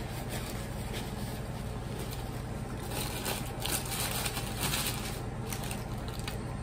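Paper food-basket liners and wrappers rustling and crinkling as hands dig into fries, the crinkling thickest in the middle of the stretch, over a steady low hum.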